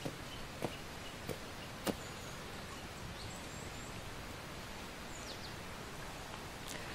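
Outdoor ambience: a steady background hiss with faint, scattered bird chirps, and four light ticks in the first two seconds.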